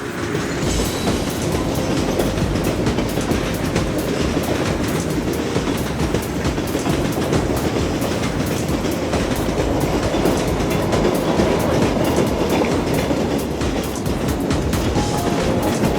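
A moving vehicle: a steady rumble with rapid, closely spaced clattering throughout.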